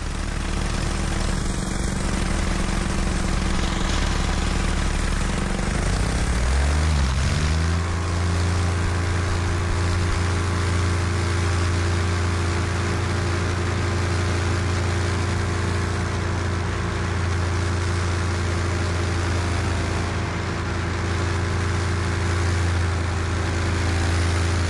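Homemade paramotor's single-cylinder four-stroke engine, breathing through a chambered aluminium muffler, running steadily with its propeller. About six seconds in it is throttled up, its pitch rising over a couple of seconds to a steady, higher-powered drone.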